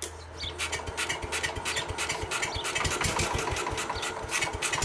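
Case 222 garden tractor's engine cranking on the starter and firing on starting fluid sprayed into the carburettor. The firing starts sparse and becomes quicker and steadier about two seconds in.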